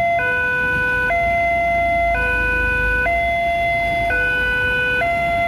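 Indonesian railway level-crossing electronic alarm sounding its two-tone warning, switching between a higher and a lower tone about once a second, over a low rumble. The alarm signals that a train is approaching and the barriers are down.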